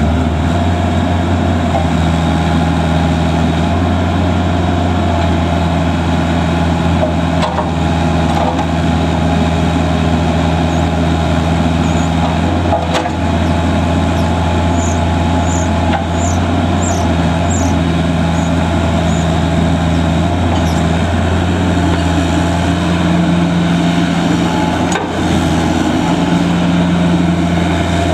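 Bobcat 331G compact excavator's diesel engine running steadily while the boom, arm and bucket are worked and the upper body swings. A few short, high squeaks come about halfway through.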